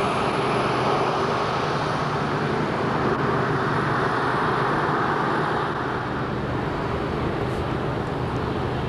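Steady drone of a propeller aircraft engine running, easing slightly about six seconds in.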